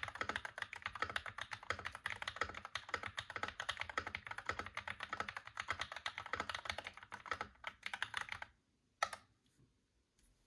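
Fast, steady typing on a Royal Kludge RK84 mechanical keyboard with lubed Glorious Panda tactile switches, foam-dampened and fitted with PBT keycaps. The typing stops about eight and a half seconds in, followed by one more sharp click.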